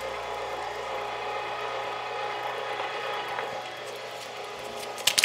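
Electric meat grinder (Meat Your Maker) running steadily under load as it grinds ice-cold cubed pork shoulder through a 10 mm die, a constant motor and gear whine. A few sharp knocks come just before the end.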